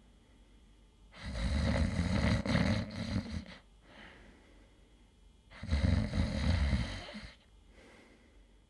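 A man snoring: two loud, long snores about four and a half seconds apart, quiet between them.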